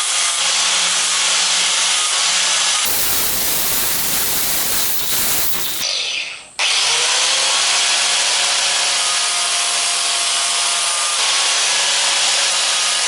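Electric grinder running with a steel hedge trimmer blade held against the wheel, a steady motor hum under the grinding noise. About a third of the way in the sound turns rougher and fades away, then the grinder comes back abruptly, its hum rising briefly in pitch before settling.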